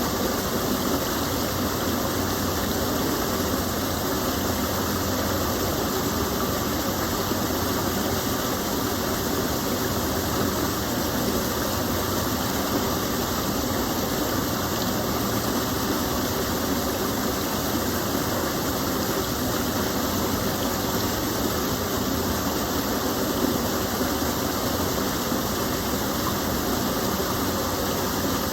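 Water of a gentle stream pouring over a small fall, a steady rushing with no changes.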